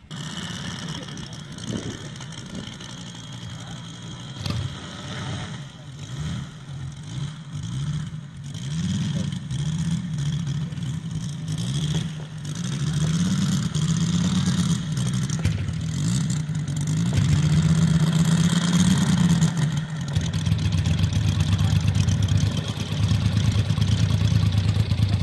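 Moki 250 five-cylinder radial engine of a large RC Yak-11 running on the ground. The throttle is blipped up and down several times through the middle, then the engine settles to a steady low idle near the end.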